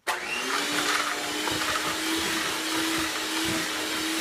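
Handheld electric mixer running with its beaters in thick chocolate chip cookie dough. It starts suddenly, its motor tone rises briefly as it comes up to speed, then runs steadily.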